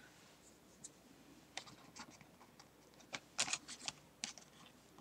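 Hands handling paper, paper mask cut-outs and a stamp on a craft table: a scatter of faint taps and paper rustles, with several close together a little past halfway.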